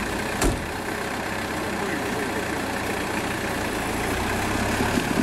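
Off-road truck's engine running steadily at low revs as the truck crawls forward, with one sharp knock about half a second in.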